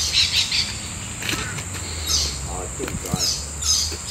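Birds calling in short repeated bursts over a steady, high-pitched insect drone.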